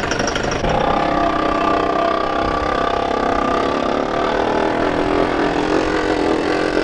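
Jeep Wrangler's engine running at a steady, low pull as it tows a broken-down Mustang on a tow strap over sand. It is a steady drone that settles in about a second in.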